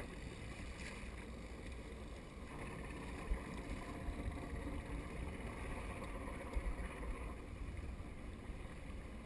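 Steady wind rumble on the microphone aboard a small boat at sea, with two brief knocks, about a third and about two-thirds of the way through.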